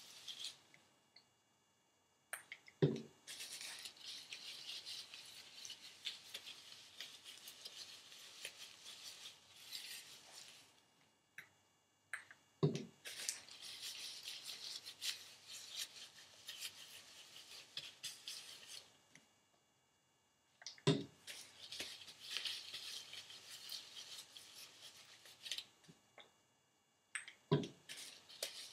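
Gloved hands rubbing and working protein treatment through hair, a scratchy rustle in three long stretches with brief pauses between them. A short low thump comes at the start of each stretch and once more near the end.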